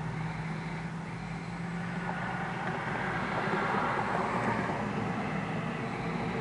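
A diesel locomotive's engine runs with a steady low hum, and a pickup truck drives past on the road about four seconds in, its engine and tyre noise swelling and then fading.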